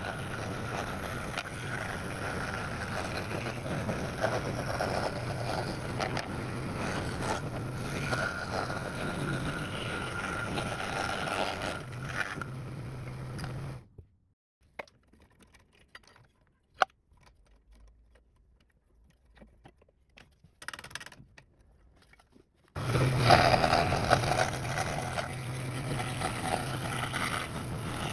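Bandsaw running with a steady motor hum and the rush of the blade. It cuts out abruptly about halfway through, leaving near silence with a few light clicks and taps, then starts again suddenly and loudly near the end.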